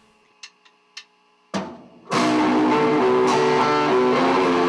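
A few short sharp ticks, then about two seconds in a death metal band starts playing loud: electric guitar over a drum kit.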